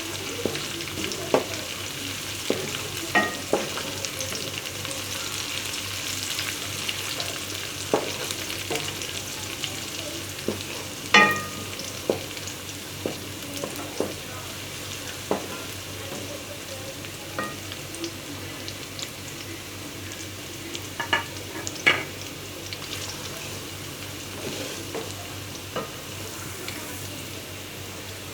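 Onion, garlic-ginger paste and green chillies sizzling in oil in a degchi (cooking pot), with a steady frying hiss. A spoon stirring the mix knocks and clinks against the pot now and then, a few of the knocks ringing briefly.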